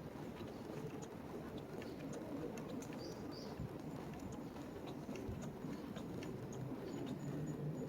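Outdoor street ambience: a steady low city hum with faint footsteps on pavement, and a couple of short high bird chirps about three seconds in.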